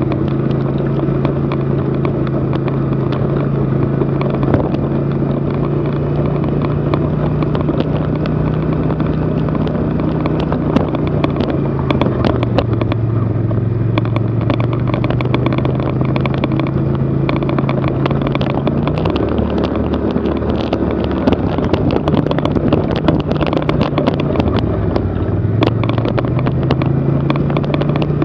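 Small vehicle engine running at low trail speed under load, its pitch dropping about twelve seconds in, dropping again around nineteen seconds and climbing back near the end as the vehicle slows and speeds up. Frequent sharp clicks and rattles run through it.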